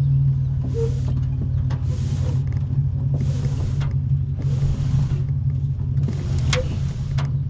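An engine idling steadily with a low hum, with short rushing bursts about every second and a half and a sharp click near the end.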